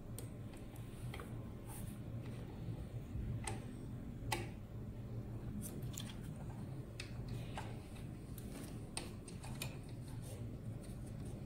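Scattered small clicks and ticks of a cable connector and plastic fittings being handled and pushed into place inside a hematology analyzer's chassis, irregular, the clearest about four seconds in. A low steady hum runs underneath.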